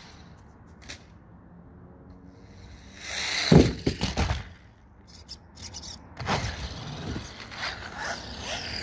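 RC car driving on a concrete driveway: a loud rush of motor and tyre noise with scraping, peaking about three and a half seconds in, and a second shorter rush around six to seven seconds.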